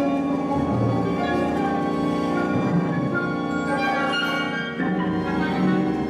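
Modern classical ensemble music: held string chords with percussion, and a new chord entering about five seconds in.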